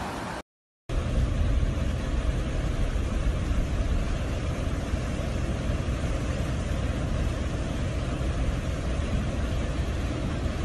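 Floodwater rushing over a road: a steady, loud, noisy rush with a heavy low rumble. A brief silent gap comes about half a second in.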